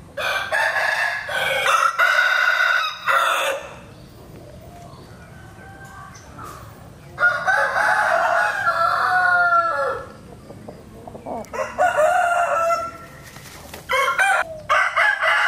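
Rooster crowing, four long crows a few seconds apart.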